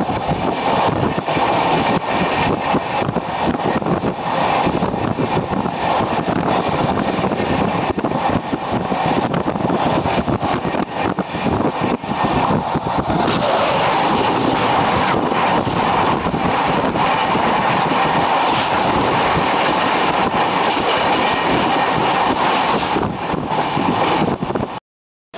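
Passenger train running: a loud, steady rumble and rattle of the coach on the rails, with many small clicks through it. It cuts off suddenly near the end.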